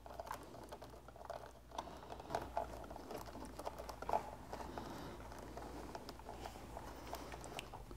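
Faint rustling and scattered small clicks from a wiring harness and its plastic connectors being handled and fed by hand into a mobility scooter's wiring box.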